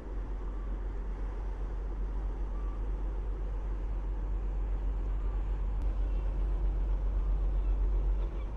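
Diesel engine of the old fishing boat Maron GK-522 running as the boat passes close: a steady deep rumble that grows louder as it nears.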